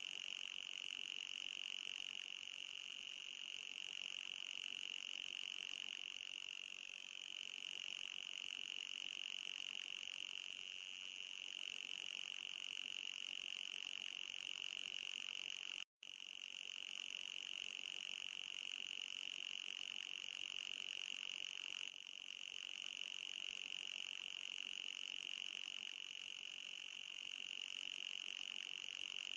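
Anti-mosquito repeller sound effect: a steady, high-pitched electronic whine with a fainter, higher band above it. Its pitch sags slightly and recovers a few times, and it breaks off for an instant about halfway through.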